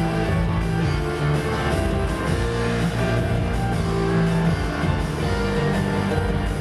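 Pop music with a steady beat, loud and continuous.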